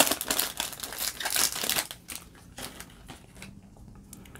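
Foil wrapper of a baseball card pack crinkling as it is torn open and peeled off the cards, for about the first two seconds; after that only faint handling of the card stack.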